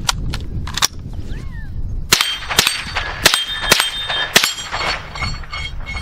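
Five quick shots from a Winchester Wildcat .22 LR semi-automatic rifle, about half a second to a second apart, each followed by the ringing ping of a steel target plate being hit. A few light clicks come first, in the opening second.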